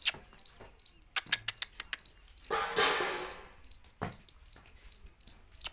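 A goat's single hoarse bleat, about a second long, with a scattering of sharp clicks before and after it.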